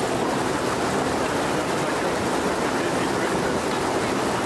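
Mountain river rushing steadily over rocks: an even, unbroken rush of water.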